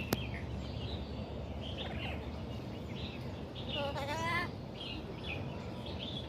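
Birds chirping: many short high chirps throughout, with one longer wavering call about four seconds in, over a steady low background rumble.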